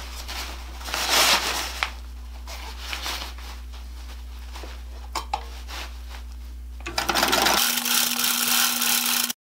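Singer 66 sewing machine's electric motor running as it stitches a seam through the fabric of a leaf drag bag. It runs steadily at first, speeds up and gets louder about seven seconds in, then cuts off suddenly near the end.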